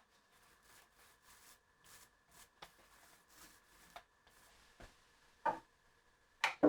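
Wooden parts being handled: a run of soft rubbing and brushing strokes, then two sharper knocks near the end, the second the louder.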